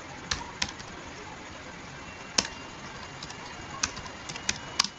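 Computer keyboard keys clicking as text is typed, a handful of single keystrokes at an uneven pace over a steady hiss.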